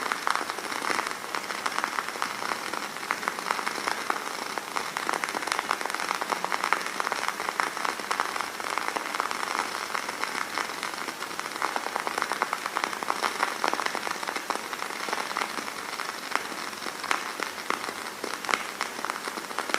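Burning candle flame crackling steadily, a dense run of fine, irregular pops and ticks.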